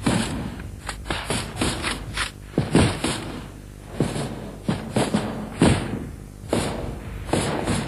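Assault rifles firing irregular single shots, about fifteen in a few seconds, each trailing off briefly.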